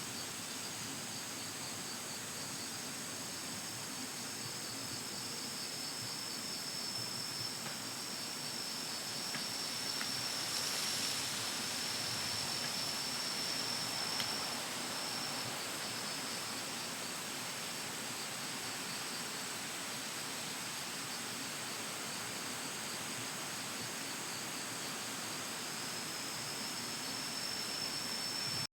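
An insect's steady, high-pitched trill, which stops about halfway through and starts again near the end, over an even background hiss.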